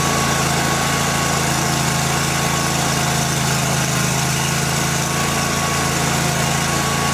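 Kohler engine on a zero-turn mower running at a steady speed just after starting.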